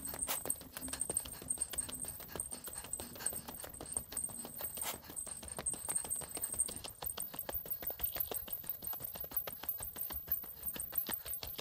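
A hiker's footsteps walking up a mountain track, a quick run of taps several times a second, over a faint steady high-pitched buzz.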